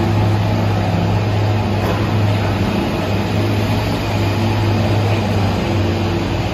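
New York City subway train at a station platform: a loud, steady low hum with a few faint steady tones above it.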